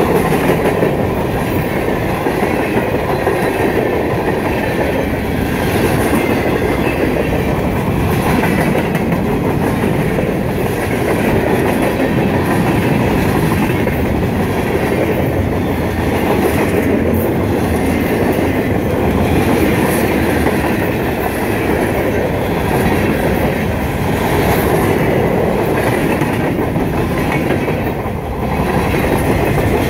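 Freight train rolling past at track speed: a steady, loud rumble of wagon wheels on the rails.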